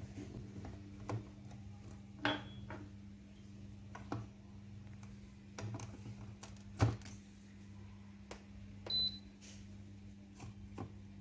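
Household handling sounds in a small room: scattered light knocks and clicks over a steady low hum, with one short high beep about nine seconds in.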